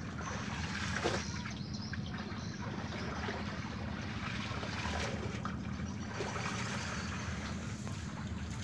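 River water lapping and trickling at the bank, with light wind on the microphone and a steady low hum underneath.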